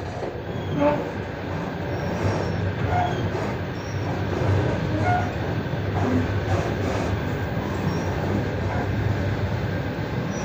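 Passenger train running, heard from inside the carriage: a steady rumble of wheels on the rails, with a few brief squeaks and faint knocks.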